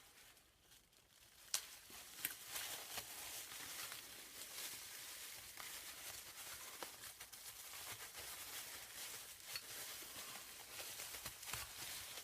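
Packaging being unwrapped by hand: steady crinkling and tearing, with a sharp click about a second and a half in.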